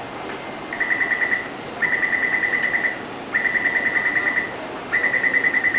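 Taipei Metro door-closing warning: rapid high beeping in four bursts, about ten beeps a second, sounding while the train's doors stand open just before they close.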